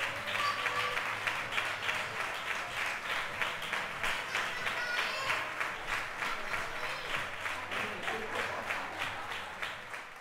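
A crowd applauding, many hands clapping densely with a few voices calling out over it, the clapping fading away near the end.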